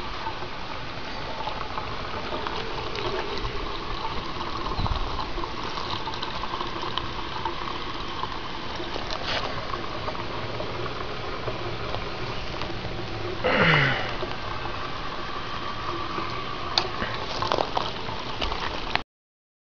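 Water pouring steadily from the spout of a hand-crank pump and splashing into a wine-barrel basin. About two-thirds of the way through, a brief, loud sound falls steeply in pitch.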